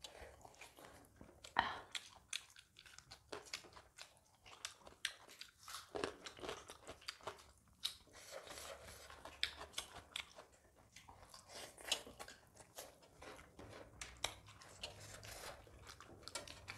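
Mukbang eating sounds of two people eating rice and curry by hand from steel plates: chewing, with fingers mixing and scooping rice on the plates, heard as a string of faint, irregular clicks.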